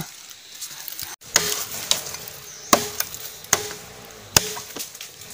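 Blade chopping into the wall of a green bamboo culm to cut an opening: a few sharp, short knocks about a second apart.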